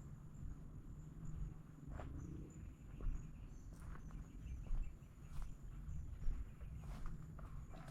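A steady high insect trill, with a few scattered light clicks and rustles over a low rumble of wind.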